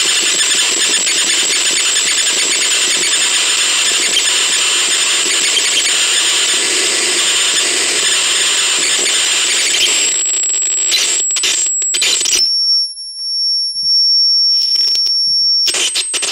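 Electronic sounds from the radio vape's small speaker: about ten seconds of harsh, crackly noise, then clicks, then a steady high-pitched beep held for about three seconds that cuts off near the end.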